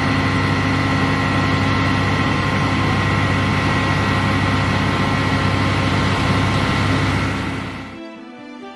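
Fire engine's engine running steadily while driving its water pump to feed the hoses, a low hum with a steady high whine over it. It fades out near the end, and music begins.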